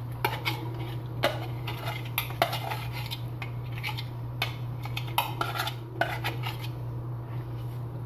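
A cooking utensil clinking, knocking and scraping irregularly against a pan as thick walnut paste is scooped into hot oil and worked around, over a steady low hum.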